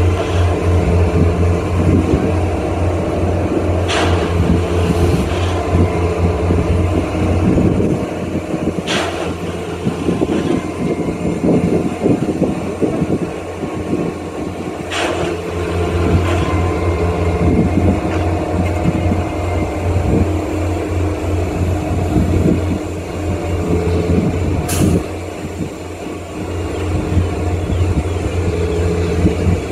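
Multiple tie tamper working: its diesel engine runs with a steady low drone while the tamping units vibrate and rattle into the ballast, the rattle busiest in the middle. About five short sharp bursts of noise stand out every few seconds.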